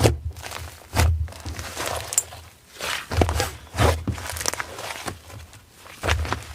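Slime being squished and pressed by hand: short sticky, crackly squelches with soft thumps, coming about once a second.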